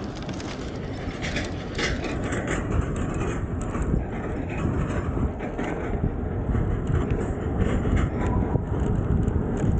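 Road bike riding on asphalt: wind rushing over the camera microphone and tyre rumble, with scattered short clicks and knocks.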